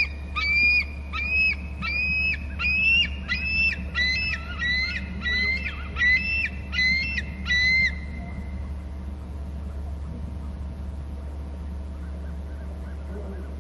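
Bald eagle calling: a run of about a dozen high, squeaky piping notes, roughly one and a half a second, falling slightly in pitch and stopping about eight seconds in. A steady low hum runs underneath.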